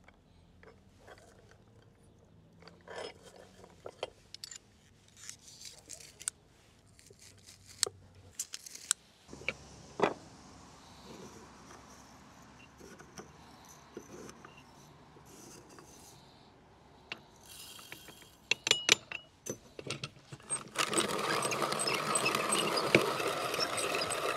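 Scattered clicks and knocks of kitchen handling, then, about three seconds before the end, a hand-cranked wooden box grinder starts grinding steadily, its mechanism ticking in an even rhythm.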